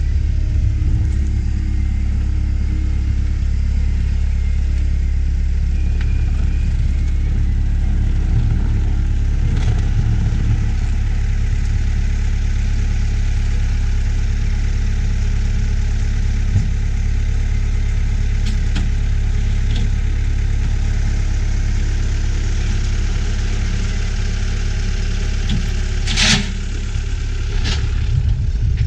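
Cat 272D skid steer's diesel engine running steadily. Near the end there is one sharp metallic clank.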